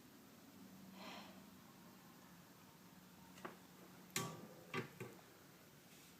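Mostly quiet room with a faint low hum, a soft swish about a second in, and a few sharp clicks and knocks in the second half, the loudest about four seconds in.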